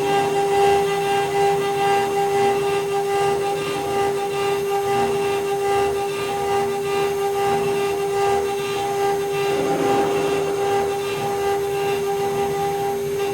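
Small desktop CNC milling machine running: the spindle holds a steady high whine while the cutter engraves metal, with a rough cutting noise that swells and fades.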